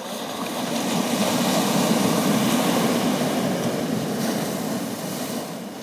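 Ocean surf crashing on a rocky shore: a rushing wash of breaking waves that builds about a second in, peaks, and slowly ebbs.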